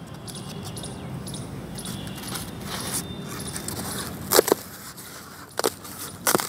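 Steady outdoor background hum, with a few short sharp snaps and clicks from thermocol (polystyrene foam) sheets being handled and broken, about four and a half, five and a half and six seconds in.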